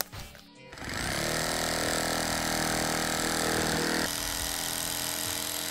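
Cordless jigsaw fitted with a metal-cutting blade, starting up under a second in and then running steadily as it saws along the edge of a wooden subwoofer box panel. About four seconds in it drops a little in level and keeps running.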